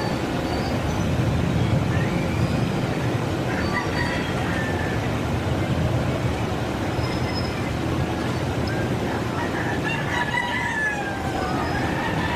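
Boeing 777-300ER jet airliner landing and rolling out on the runway: a steady rumble of its GE90 engines and rushing air. Faint bird calls sound over it, one about four seconds in and a longer falling call about ten seconds in.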